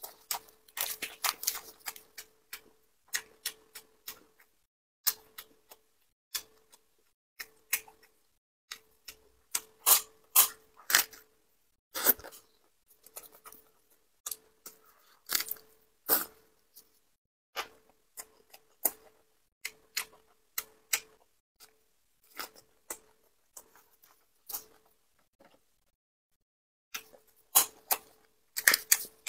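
Close-miked chewing of lettuce-wrapped braised pork belly: crisp crunches of fresh lettuce leaves in quick, separate bites with silent gaps between them, mixed with the crackle of leaves being handled and folded.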